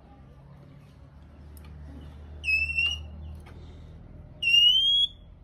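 Male oriental magpie-robin giving shrill whistled calls, twice, each about two-thirds of a second long and rising slightly in pitch. These are its agitated 'rít khè' calls, used to provoke other magpie-robins into singing.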